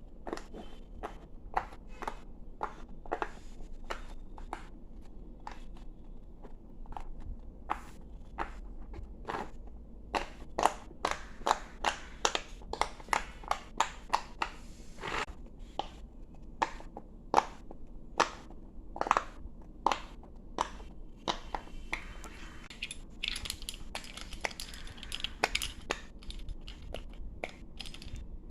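Fidget toys being clicked and popped: a string of sharp clicks and pops, about one or two a second and sometimes in quick pairs, with a denser rustling stretch near the end.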